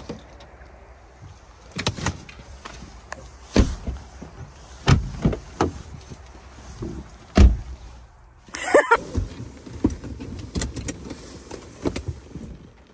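A car's doors and fittings clunking and clicking as people get in: about a dozen separate knocks, the loudest about seven and a half seconds in, with a short squeak around nine seconds in.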